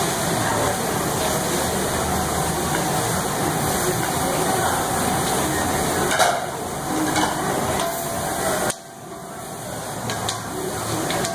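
Noodles, vegetables and meat sizzling on a large round Mongolian barbecue griddle while long cooking sticks tap and scrape against the hot surface. The sizzle drops away sharply about nine seconds in, then builds up again.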